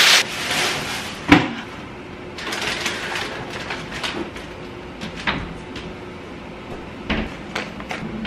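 Groceries being put away by hand: a plastic bag rustling, a sharp knock about a second in, then more rustling and a few light knocks and clicks of items and cupboard or fridge doors.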